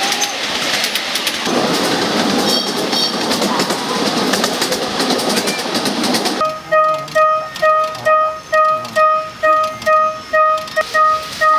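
Miniature ride-on train running past with a clattering rumble over the rails. About six seconds in the train noise breaks off abruptly, and a miniature railroad-crossing alarm rings: an electronic two-pitch clang repeating about twice a second.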